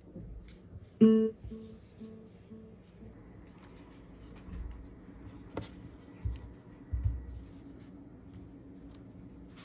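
A short plucked, guitar-like chime from a JBL Flip 6 portable speaker about a second in, repeating and fading away over the next second or two. A few soft thumps and one sharp click follow as the speaker is handled.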